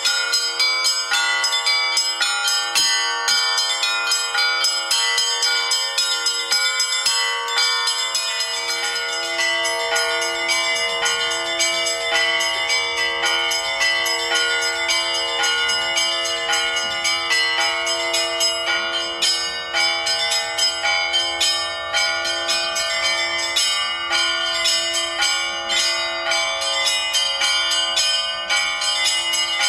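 Bells ringing continuously: many strikes overlap, each leaving a long ringing tone.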